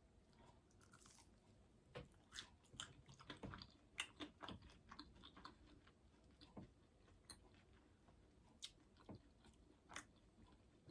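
Faint close-up chewing of a meatless meatball in barbecue sauce: soft wet mouth clicks and smacks, busiest a couple of seconds in, then thinning out to occasional clicks.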